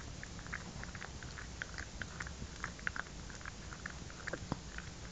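A small dog licking and nibbling at a paw: a run of quick, irregular wet smacks and mouth clicks, several a second, with a few louder ones.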